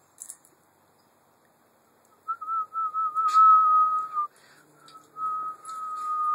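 Whistling on one steady high note, starting about two seconds in and held for about two seconds, wavering slightly at its start. After a short pause a second long whistle begins and is still going at the end.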